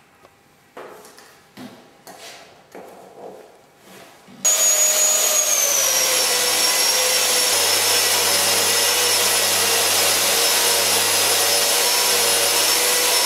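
A few light clicks and knocks of the telescopic pole being fitted, then, about four seconds in, an Eibenstock ETS 225 drywall sander running loud and steady as its disc sands a wall, a noisy rush with a high whine that settles slightly lower soon after it starts.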